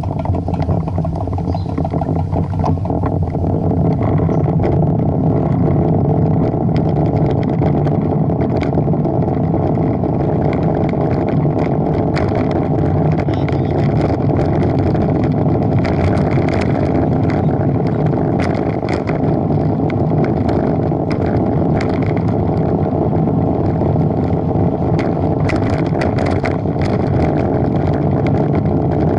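Steady rush of wind over a bicycle-mounted camera's microphone, mixed with tyre noise on asphalt, with scattered small ticks and rattles from the ride.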